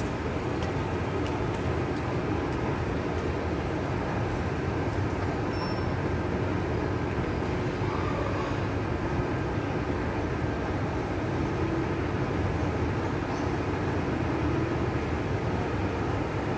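Steady outdoor city ambience: an even low rumble and hiss that does not change.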